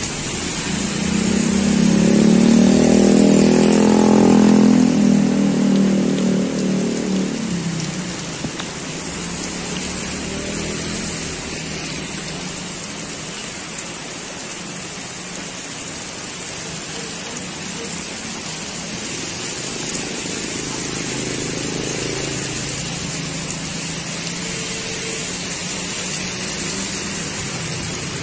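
Heavy rain pouring steadily, with a motor vehicle's engine passing by during the first several seconds, the loudest sound, and a fainter vehicle passing about twenty seconds in.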